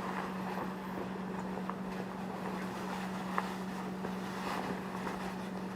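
Background room tone of a home recording between speeches: a steady hum under a soft noise hiss, with a few faint ticks.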